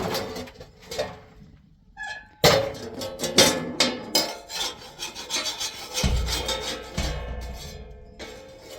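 Irregular rough scraping strokes, one after another, fading away near the end.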